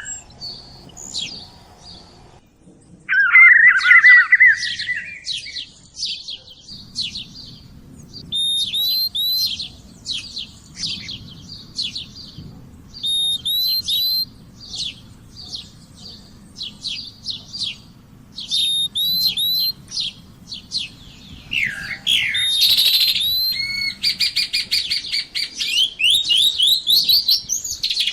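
Several songbirds singing: a steady run of short, high chirping notes and repeated phrases. A lower warbling phrase comes a few seconds in, and a fast, dense trill comes near the end.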